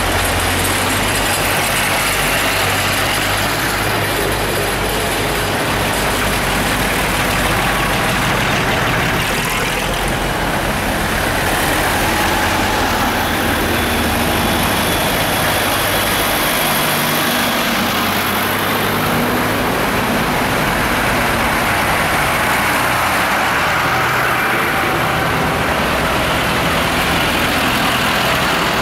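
Diesel engines of farm tractors running as they drive past one after another, a steady low engine drone that shifts in pitch as each tractor comes and goes.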